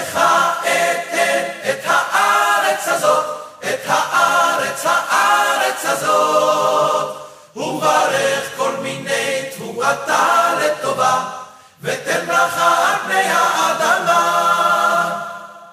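A cappella vocal group singing in harmony, with no instruments, in four phrases of about four seconds each, split by short breaths.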